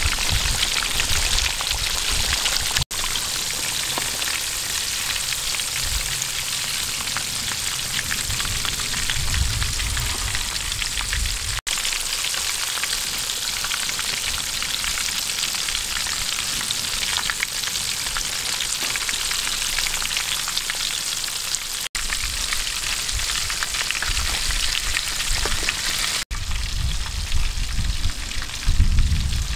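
Breadcrumb-coated fish deep-frying in hot oil in an aluminium wok: a steady, busy sizzle of bubbling oil, broken by a few brief drop-outs.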